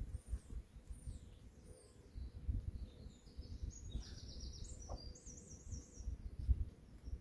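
Songbirds singing: scattered high chirps, then a fast trill about four seconds in and a run of warbling notes after it, over a low rumbling noise.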